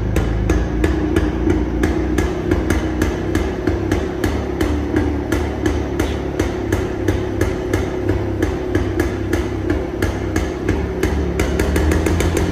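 1973 Jawa 250's single-cylinder two-stroke engine idling through its twin exhausts, with a low rumble and regular sharp pops about three a second that come a little faster near the end.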